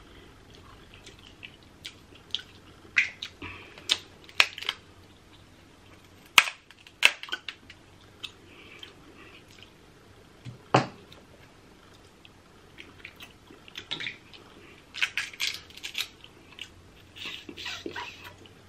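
Close-miked eating of crab legs: chewing and lip-smacking, with scattered sharp clicks and cracks of crab shell, a few louder cracks in the middle and clusters of crackling toward the end.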